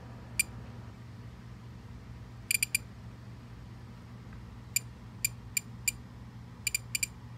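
Spektrum DX6e radio transmitter beeping as its scroll wheel is rolled and pressed to step through its menu screens: about a dozen short, high beeps, some single and some in quick runs of two or three.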